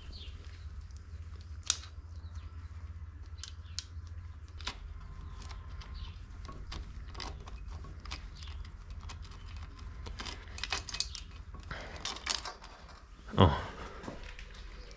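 Light metallic clicks and taps of hand tools and small parts at the cam-chain area of a 2003 Honda CRF450 engine as the timing-chain stopper is unbolted and the chain worked free, over a steady low hum. Near the end comes a louder clunk and clinking as the slack timing chain is drawn out.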